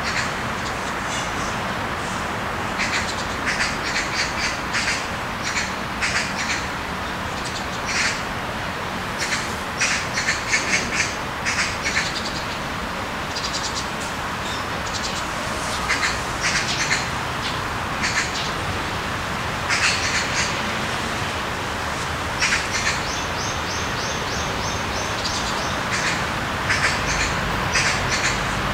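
Birds chirping in quick bunches of short, high calls every second or two, over a steady hiss.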